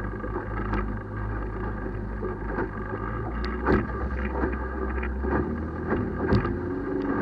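35 hp tiller outboard motor running steadily at low speed on its first run after being submerged, with sharp knocks now and then.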